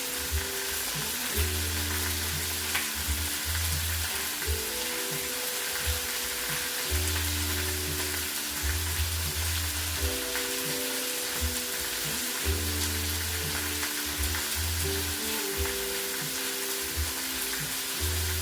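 Food sizzling steadily in a frying pan, a continuous hissing, over background music of sustained chords and a heavy bass line that change every couple of seconds.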